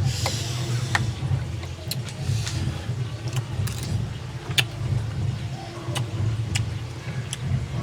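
A steady low hum with sharp clicks and taps about once a second, and a short hiss at the start.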